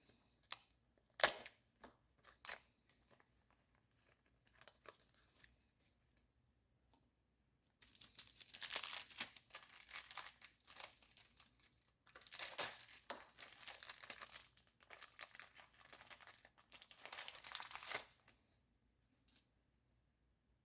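Plastic packaging from a brake rebuild kit being torn open and crinkled, in two long stretches of rustling through the middle and latter part, after a few light clicks of parts being handled.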